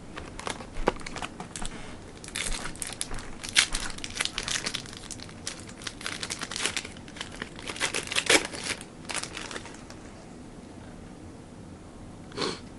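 A plastic trading-card pack wrapper crinkling and being torn open by hand, a dense run of crackles that dies away after about nine seconds.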